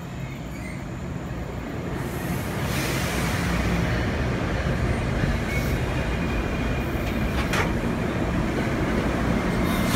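New Jersey Transit commuter train passing through the station, growing louder over the first three seconds and then running steadily, with a single clank about seven seconds in.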